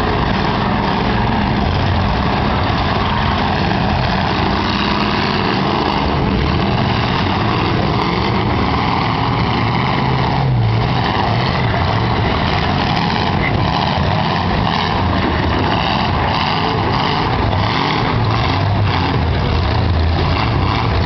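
Several V8 demolition-derby car engines running and revving together, a loud, unbroken mechanical din.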